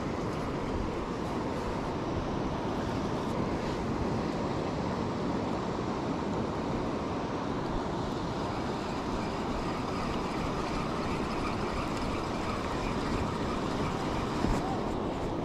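Steady rumble of wind buffeting the microphone over breaking surf, holding an even level throughout.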